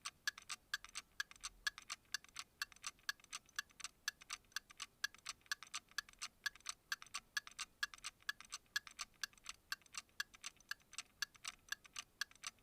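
Faint, steady ticking of about four even ticks a second, alternating louder and softer like a tick-tock.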